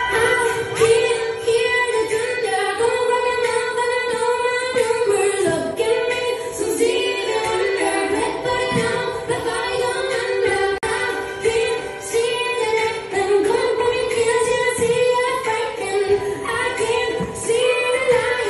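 Music playing for a dance solo: a slow song with a female singer holding long notes over the accompaniment.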